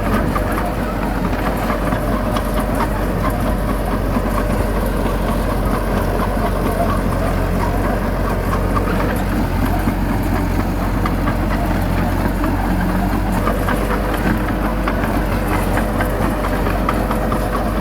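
Heavy diesel engine of earthmoving equipment running steadily at an even pace, with a rough clatter.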